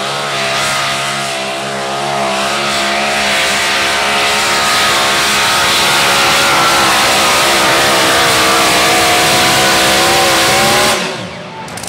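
Two-wheel-drive pulling truck's racing engine at full throttle, dragging the weight sled. Its pitch wavers and climbs through the run, then drops off sharply about eleven seconds in as the throttle is let off at the end of a full pull.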